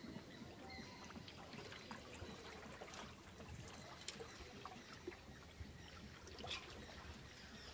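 Quiet trickling and lapping of water around a small wooden boat as it is paddled through floodwater, with scattered faint drips and ticks.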